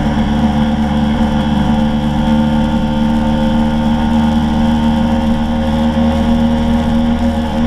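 Scooter engine running at a steady speed while riding, heard close from a camera mounted by the front wheel, with wind and road noise underneath. The engine's pitch holds level.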